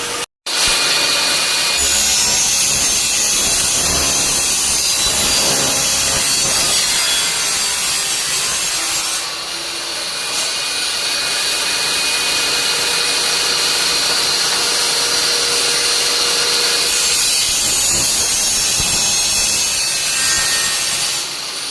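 Coconut-shell circle-cutting machine running, its cutter sawing through coconut shell with a steady, loud grinding that eases briefly about halfway through.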